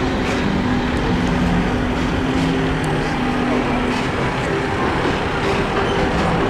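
Diesel construction machinery running: a steady rumble with low engine tones that shift in pitch every second or so.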